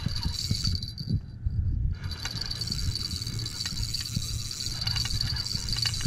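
Crickets trilling steadily in one high, even tone. Under it are a low rumble and a few small knocks from a fishing rod and reel being handled close to the microphone.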